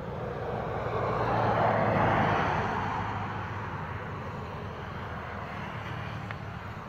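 A vehicle passing on the road, its noise swelling to a peak about two seconds in and then fading away, over a steady low hum.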